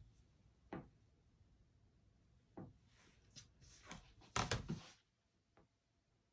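Faint, scattered light taps and rustles of hands moving cut fabric and an acrylic quilting ruler on a cutting mat, with a slightly louder cluster of knocks a little after the middle as the ruler is set down.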